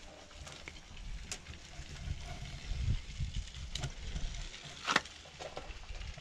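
Fillet knife slicing meat from a deer leg bone on a plastic cutting board: a few faint sharp clicks and scrapes, the loudest about five seconds in, over a low, uneven rumble.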